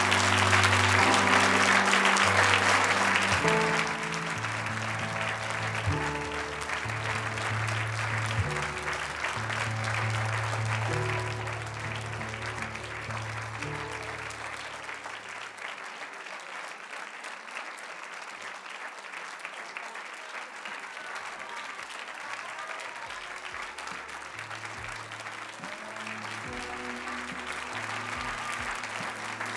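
Theatre audience applauding over recorded music. The applause is loudest for the first few seconds, then settles into steady clapping; the music drops out about halfway through and comes back near the end.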